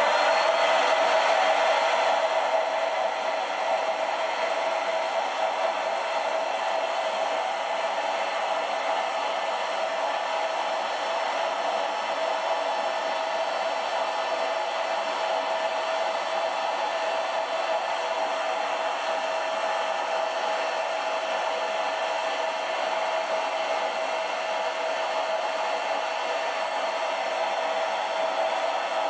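Electric air pump switched on and running steadily, blowing air into a vinyl beach ball: a constant motorised whir with a steady hum, a little louder for the first couple of seconds.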